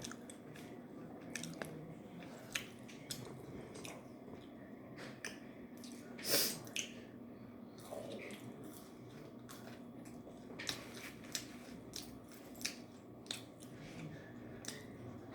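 A person chewing food close to the microphone: scattered wet mouth clicks and smacks, with one louder snap about six seconds in.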